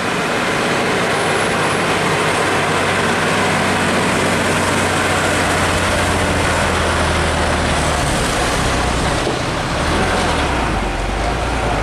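Old diesel truck pulling a loaded drawbar trailer slowly up a bend, its engine running hard under load with a steady low drone. The engine note drops lower near the end as the heavy rig slows.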